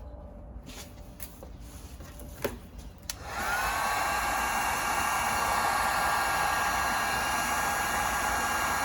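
A few small handling clicks, then about three seconds in a heat gun switches on, its pitch rising briefly as it spins up, and runs with a steady fan hum. It is gently heating the nylon locking ring on a Bing carburettor's slide diaphragm to soften it.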